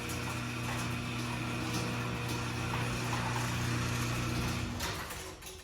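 Garage door opener motor running steadily with some clicking and rattling as it closes the door, then stopping about five seconds in.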